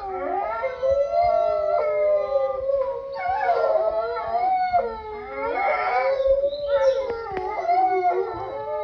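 Wolves howling in chorus: several long, wavering howls at different pitches overlap, with fresh howls starting again every few seconds.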